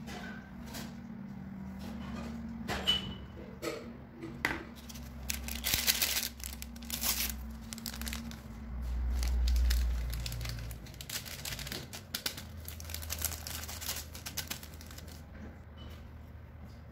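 Paper yeast sachets crinkling and rustling in the hand as they are shaken out over flour, in a run of short crisp crackles. A brief low rumble about nine seconds in is the loudest moment.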